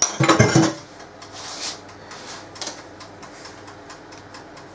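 Dishes and cutlery clattering for about half a second as they are handled, then a few soft sliding and scraping sounds.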